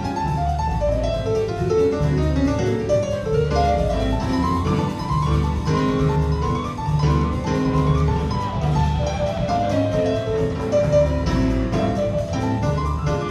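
Live jazz band playing, with a melody line over a steady bass.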